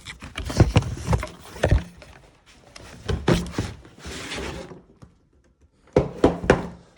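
Knocks, clicks and rustling from a plastic tool-kit box and its packaging being handled. Sharp knocks come in a string, then a short rustle or slide. After a brief silent pause, more knocks follow near the end.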